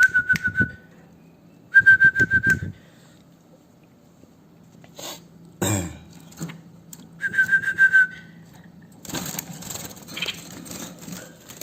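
Young bulbuls, not yet old enough to sing, calling in three short bursts of quick, evenly repeated high chirps, each under a second long. Between the bursts come a few sharp clicks, and a stretch of rustling noise follows near the end.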